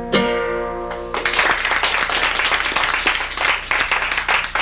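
A final strummed chord on a nylon-string classical guitar rings out for about a second, closing the song. Then a small audience claps and applauds.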